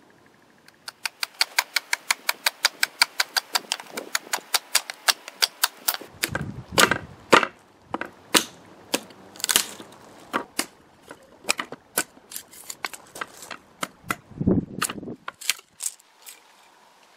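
A billhook chopping into wood, splitting a weathered board into sticks: a run of quick, even chops, about three or four a second, then slower, heavier, irregular blows with a few dull thumps.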